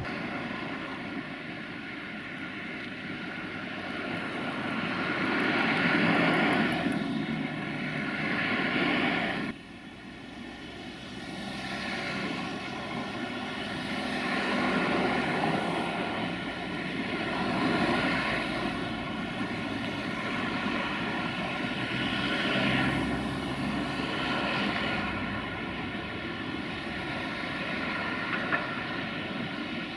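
Road traffic on a city street: cars and buses driving past one after another, each swelling and fading over a steady hum. The sound drops abruptly about nine seconds in.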